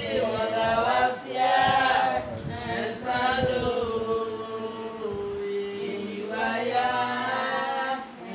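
Voices singing a slow, chant-like song, holding long notes, with one note held for about a second around five seconds in.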